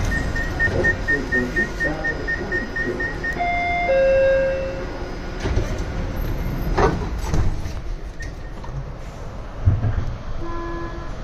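Subway train standing at a station with its door warning signals sounding: a rapid run of short beeps, then a chime of several tones about four seconds in, a clunk near seven seconds, and another chime near the end as the train starts to pull away, over the low rumble of the train.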